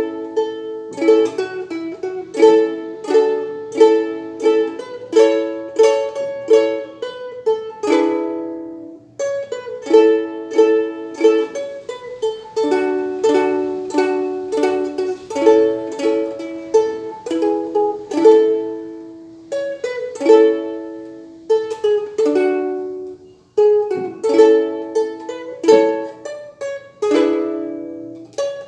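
Palmer soprano ukulele strummed in chords, playing a hymn melody with steady strokes and brief pauses between phrases.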